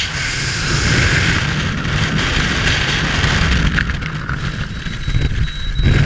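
Freefall wind rushing hard over a skydiver's camera microphone. It eases off in the last couple of seconds as the parachute deploys, with a loud burst of flapping as the canopy opens near the end and a run of short high beeps.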